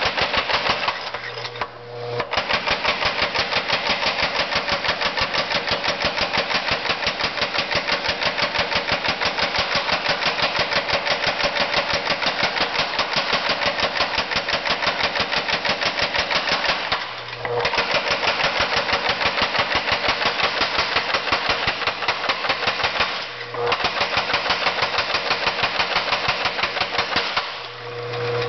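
Newly rebuilt 25 lb Little Giant power hammer drawing out a hot iron bar, its ram striking in a fast, even rhythm of blows. The hammering stops briefly three or four times, leaving only the hum of the electric motor and flywheel.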